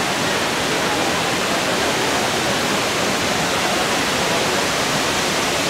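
Waterfall rushing: a steady, loud roar of falling water that does not change.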